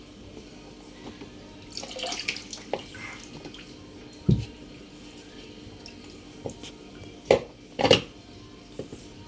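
Water running and splashing, with a few sharp knocks; the two loudest come close together near the end.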